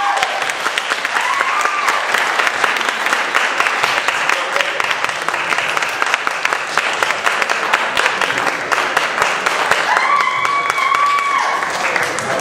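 Audience applauding steadily, with voices calling out over the clapping about a second and a half in and again near the end.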